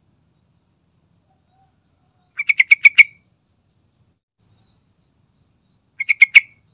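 Yellow-vented bulbul calling: two short bursts of rapid, repeated chattering notes, the first about two and a half seconds in with about seven notes, the second near the end with about five. Each burst grows louder toward its last note.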